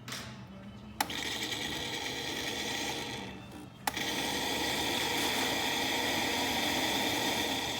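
Saeco Exprelia Evo super-automatic espresso machine running its hot-milk function: a click about a second in, then its pump running steadily. The pump dips briefly, clicks again near four seconds, and runs on.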